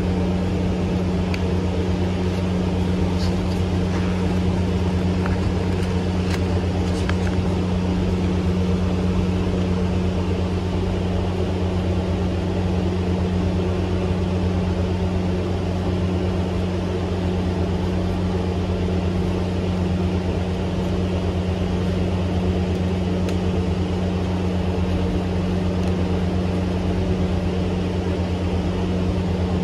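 A steady low mechanical hum with an even drone that does not change, and a few faint papery ticks from the card being unfolded in the first several seconds.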